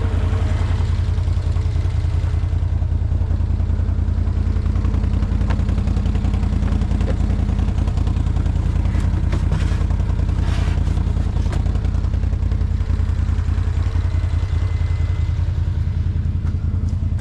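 Can-Am Outlander XMR 850 ATV's V-twin engine running steadily as it is ridden, with a few knocks and rattles around the middle.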